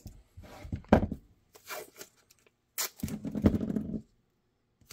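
Blue painter's tape being pulled, wrapped and pressed down by hand over a pistol mold: scattered crinkles and rubs, a sharp tick near three seconds in, then a longer, louder rasp lasting about a second.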